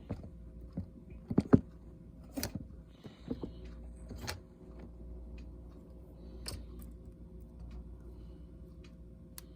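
Scattered small clicks and taps as the plastic scissor mechanism of a MacBook Pro key is handled and fitted into place, over a steady low hum.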